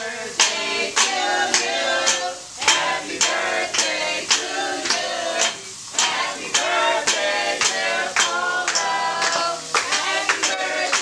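A group of people singing a birthday song together, clapping in time about twice a second.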